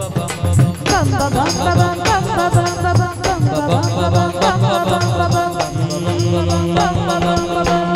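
Live folk stage band playing an instrumental passage between sung lines: dholak and dhol keep a steady beat under dense rattling percussion, while a melodic lead plays sliding, bending notes over them.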